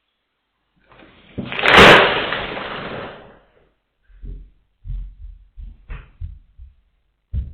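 A white artificial Christmas tree hung with baubles crashing over onto a tiled floor, a loud rustling, clattering crash that peaks about a second in and dies away over the next second and a half. A run of short soft thumps follows.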